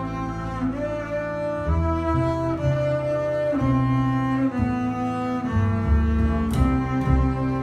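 A trio of double basses played with the bow: sustained low notes under a slow melody line, the notes changing about once or twice a second.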